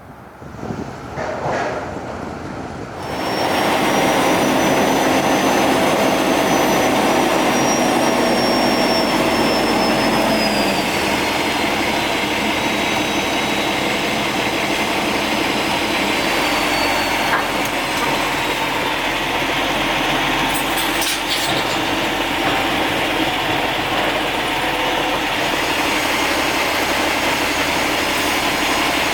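A heavy engine starts running loudly about three seconds in and keeps a steady mechanical drone, with a high whine that slides down in pitch over the next several seconds.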